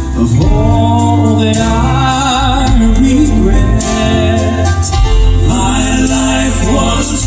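Southern gospel male vocal quartet singing long held notes with vibrato over a band accompaniment with steady bass.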